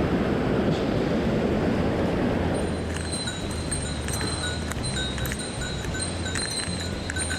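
A rushing wash of stream water for the first couple of seconds. From about two and a half seconds in, background music with chime-like tones and a pulsing bass takes over.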